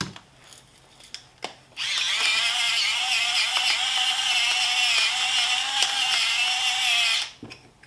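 Pepper mill grinding pepper: a steady, high-pitched whirring grind that starts about two seconds in, runs for about five seconds and stops suddenly.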